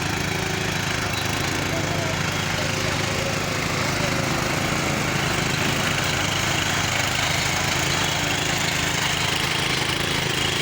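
Small engine of a powered weeding machine running steadily at a constant speed, with an even low-pitched chug.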